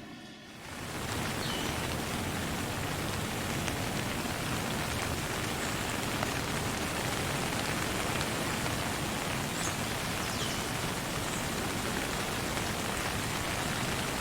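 Steady rain falling, an even hiss of drops with no thunder. The sound dips briefly and swells back up about a second in.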